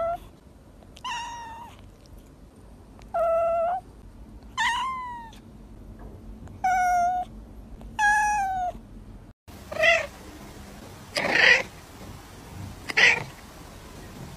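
A white kitten meowing over and over: six short, high meows a second or two apart. After a brief cut, a cat makes three shorter, noisier calls.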